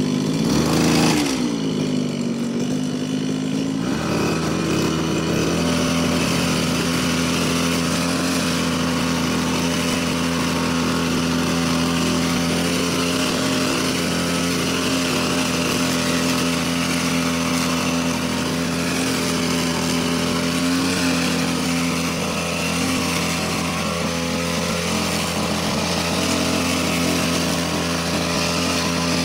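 Stihl brush cutter engine running at steady throttle, spinning a plastic scrubbing brush fitted in place of the cutting head against moss-covered paving stones. About a second in, its pitch briefly dips and climbs back, then it holds steady.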